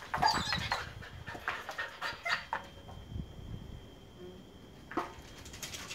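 Siberian husky panting and whimpering, with a few short clicks and scuffs, busiest in the first couple of seconds and quieter after.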